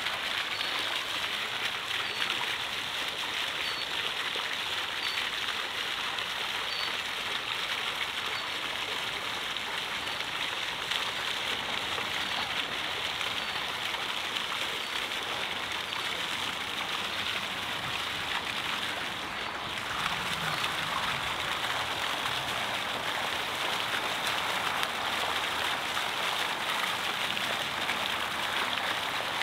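Steady sound of running or splashing water, an even hiss like a stream, cascade or fountain, with a brief dip about twenty seconds in.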